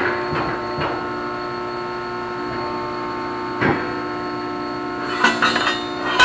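Press brake running with a steady multi-tone hum while a 1/4-inch steel piece is bent, with a sharp metal clank about halfway and a quick cluster of clanks near the end.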